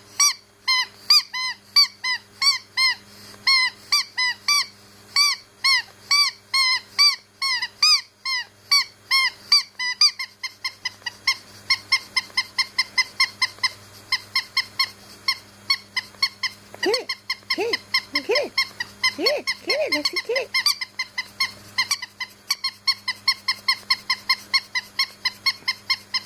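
Rubber squeaky dog toy squeaking over and over as a German Shepherd chews it, about two or three short squeaks a second. The squeaks come faster and fainter after about ten seconds, with a few lower sliding squeals in the middle stretch.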